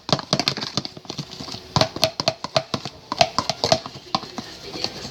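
A quick, irregular run of short clicks and taps, several a second.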